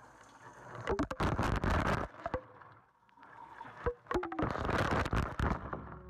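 Shower spray from a handheld shower head hitting a phone and its surroundings, heard through the wet phone's own microphone: two spells of rushing water with sharp ticks of drops striking close by, with a quiet gap between them as the spray sweeps past.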